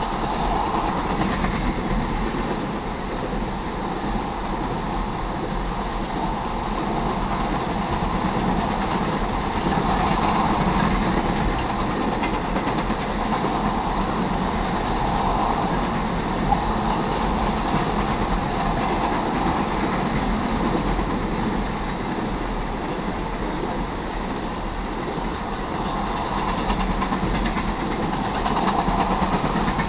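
An empty crude oil train's tank cars rolling past: a steady rumble and rattle of steel wheels on rail, gently rising and falling in loudness, with one sharp click about halfway through.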